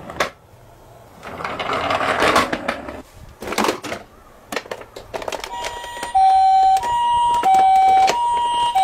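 A toy ambulance's electronic siren starts about five and a half seconds in, sounding the Japanese two-tone hi-lo 'pii-poo', each tone held just over half a second. Before it come short bursts of rattling and clicking from plastic toy cars being handled in a cardboard box.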